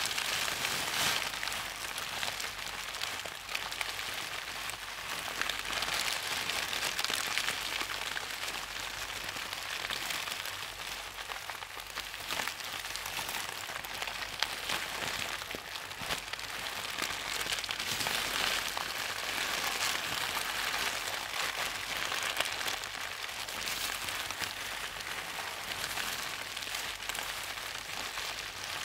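Steady rain-like hiss with faint scattered crackles, swelling and easing slowly in level.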